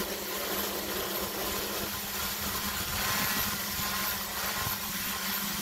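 Multirotor drone's propellers buzzing steadily as it hovers at an overhead power line cable, with one constant low hum tone.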